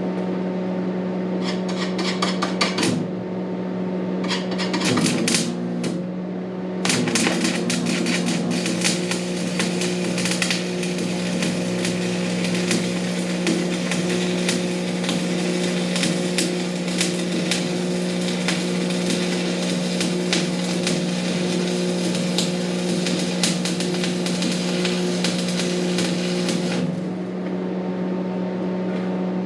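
Stick (arc) welding: the electrode's arc crackles and sputters in two short runs, then in one long bead of about twenty seconds that starts about seven seconds in and stops near the end. A steady low hum runs underneath.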